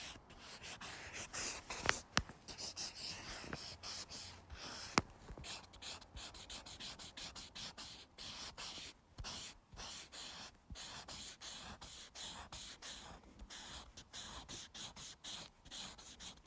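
The broad tip of a felt-tip marker scratching close to the microphone in quick back-and-forth strokes, colouring in a large area. There are two sharp ticks, about 2 and 5 seconds in.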